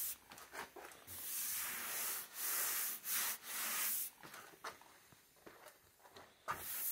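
Hand sanding on a car body panel: repeated back-and-forth rubbing strokes of abrasive paper. The strokes run steadily for about four seconds, then thin out to a few light scrapes, with one more stroke near the end.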